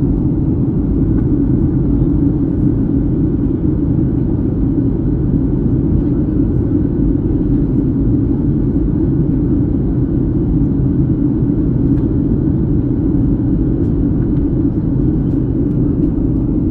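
Steady cabin noise inside a Boeing 737-700 in descent: the low, even drone of its CFM56-7B turbofan engines mixed with the rush of air past the fuselage.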